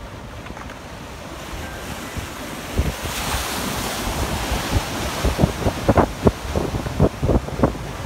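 Waves washing in, with wind on the microphone, then a quick run of splashes from about five seconds in as a surfer's hands paddle a longboard through the water close by.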